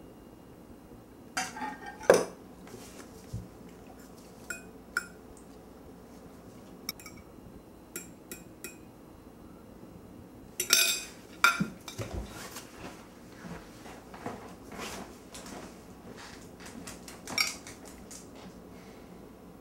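Cutlery clinking against china dinner plates as two people eat, in scattered sharp clicks with busier bursts a couple of seconds in and around the middle.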